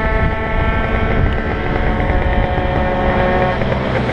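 Gilera Runner FX scooter's 172 cc two-stroke engine running at high revs, then dropping off about three and a half seconds in as the rider slows for a chicane, under heavy wind rush on the microphone.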